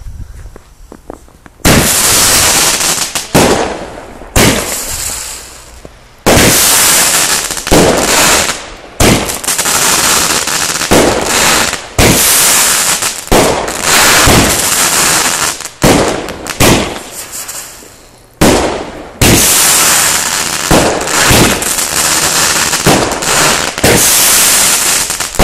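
A consumer fireworks cake firing its shots one after another: a long run of loud bangs and bursts with short gaps, starting about two seconds in and continuing to the end.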